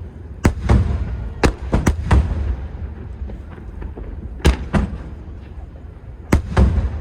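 Aerial firework shells bursting: about nine sharp bangs in clusters of two or three, over a steady low rumble.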